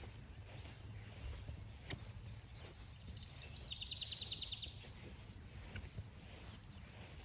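A small songbird sings one short song about three seconds in: a couple of high notes, then a quick trill of about ten notes. Behind it, steady crunching footsteps at walking pace on the trail.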